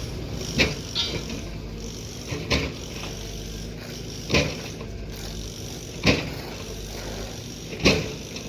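Excavator's diesel engine running steadily, with a sharp knock about every two seconds, five in all.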